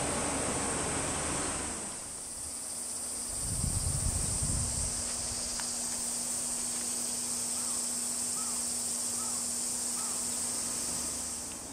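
Cicadas buzzing in a steady high-pitched chorus. A broad rushing noise fades out about two seconds in, and a brief low rumble follows about four seconds in.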